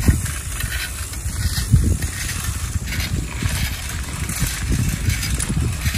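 Wind buffeting the microphone of a camera on a moving bicycle, an irregular low rumble, with the tyres running over a rough gravel path.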